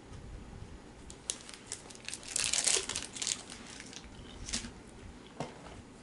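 Plastic wrapper of a Mr. Big candy bar crinkling in the hands. A few sharp crackles lead into a dense burst of crinkling about two and a half seconds in, then scattered crackles.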